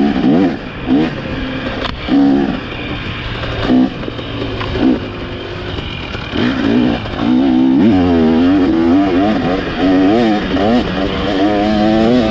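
KTM TBI two-stroke dirt bike engine revving in short throttle blips, then held at higher revs from about halfway in, its pitch wavering rapidly up and down with the throttle.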